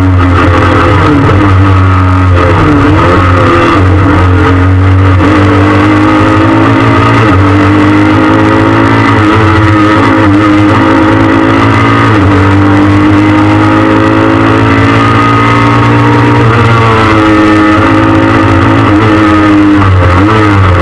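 Peugeot 306 S16's 2.0-litre 16-valve four-cylinder engine driven hard on a rally stage, heard from inside the stripped cabin, its pitch repeatedly rising and falling as it revs up and backs off, over heavy road and drivetrain noise.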